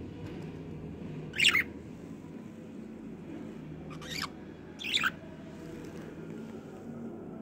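Budgerigar giving three short, sharp chirps, about a second and a half in, at four seconds and at five seconds, the last one sliding down in pitch.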